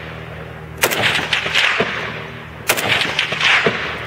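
Two single shots from an AK-pattern rifle, about two seconds apart, each followed by a long echo lasting about a second.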